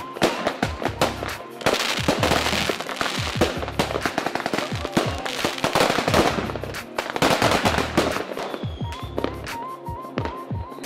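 Dense barrage of aerial fireworks: rapid bangs and crackling in quick succession, heaviest in the middle and thinning out to scattered bangs about eight seconds in.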